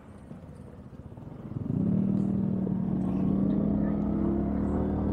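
Suzuki Gixxer single-cylinder motorcycle engine running low at first, then pulling away about a second and a half in, its pitch rising briefly before settling into a steady run.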